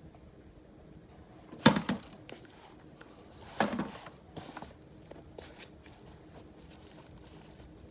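Kitchen handling noises: two short crinkling rustles about two seconds apart, followed by a few lighter clicks and rustles.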